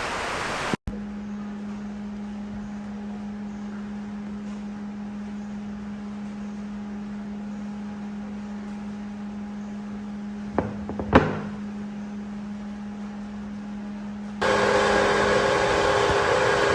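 An electric motor hums steadily with a clear low tone, and two sharp knocks come about two-thirds of the way through. Near the end it gives way abruptly to a louder, noisier machine run with several steady tones.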